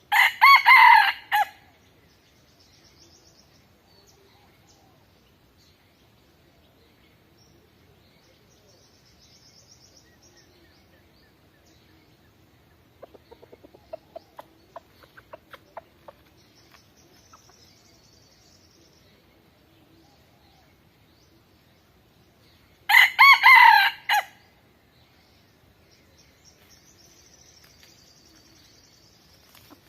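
A rooster crowing twice, one loud crow of about a second and a half at the start and another about twenty-three seconds in. Between them a run of soft hen clucks, with faint high chirps now and then.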